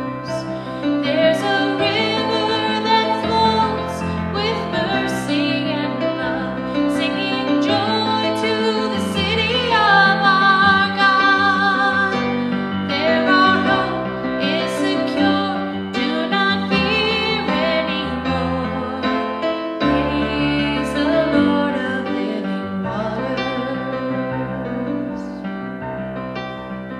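Music: a woman singing with piano accompaniment, her voice wavering with vibrato on held notes about ten seconds in.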